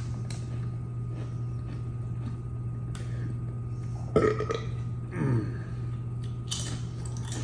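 A man burping from an overfull stomach. There is a loud, sudden burp about four seconds in, then another about a second later that falls in pitch.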